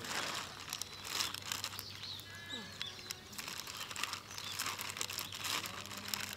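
A rabbit chewing a piece of raw green pepper, with a run of small, crisp, irregular crunches.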